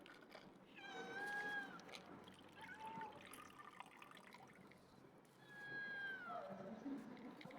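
Cat meowing three times: a long meow about a second in, a short one, then a long meow that falls in pitch near the end.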